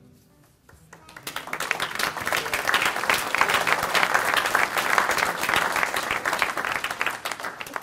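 Audience applauding. The clapping starts about a second in, quickly builds to a steady round and dies away near the end.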